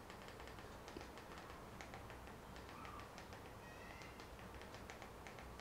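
Faint, irregular clicks of TV remote-control buttons pressed in quick succession, a few per second, over a low hiss.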